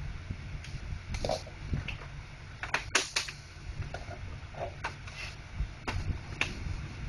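Scattered plastic clicks and snaps from a Brother MFC-J615W inkjet printer's housing as the control panel is unclipped and pried off, the loudest couple about three seconds in.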